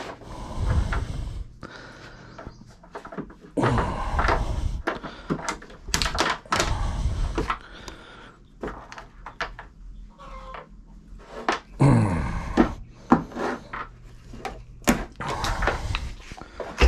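Bolt cutters biting through a plastic coat hanger, several separate sharp snaps and clunks as the handles close, with knocks of the hanger and tools against the workbench between cuts.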